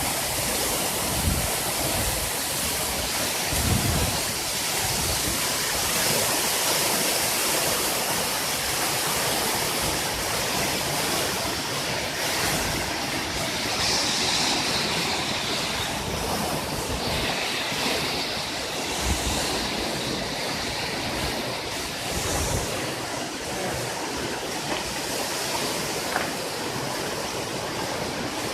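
Meltwater waterfall pouring down inside an ice cave: a steady rush of falling water.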